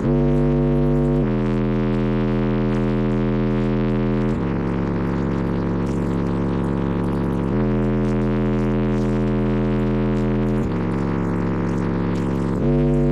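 Bass-heavy music played loud through a blow-through system of six DC Audio Level 5 12-inch subwoofers, held low notes stepping to a new pitch about every one to three seconds.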